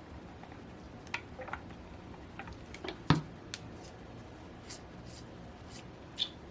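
Scattered small clicks and taps of metal model-engine parts being handled, with one sharper knock about three seconds in.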